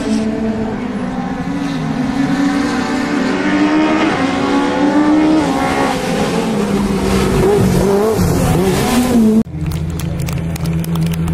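Rallycross cars' engines revving hard, the pitch rising and falling as the cars shift and brake through the corners. About nine and a half seconds in, the sound changes abruptly to a steadier, lower engine note with rapid crackling.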